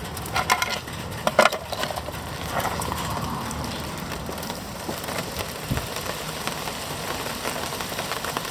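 Rain falling steadily, a continuous patter. A few sharp knocks and clicks of handling come in the first two seconds.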